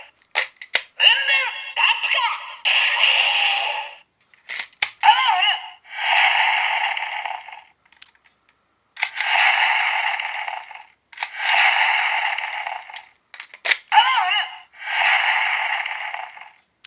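Electronic toy sound effects and voice lines from a small, tinny speaker, played in about seven short bursts. Sharp plastic clicks come before several of them, like a car being slotted in or a button being pressed.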